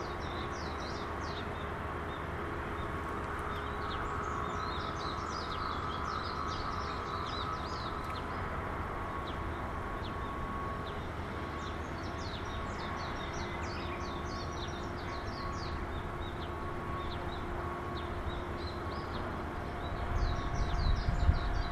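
Small birds chirping and singing in quick scattered phrases over a steady faint hum, with a low rumble of wind on the microphone rising near the end.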